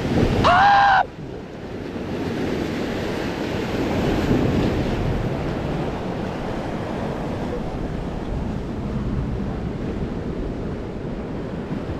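Lake waves breaking and washing against the shoreline rocks, a steady surf with wind buffeting the microphone. A short high-pitched cry from a person opens it and cuts off suddenly about a second in.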